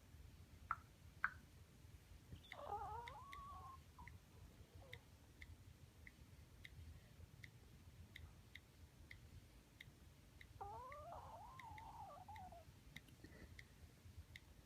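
An animal snoring faintly with a whistling, wavering pitch: two long snores several seconds apart. A faint, even ticking runs beneath them, with a couple of sharp clicks near the start.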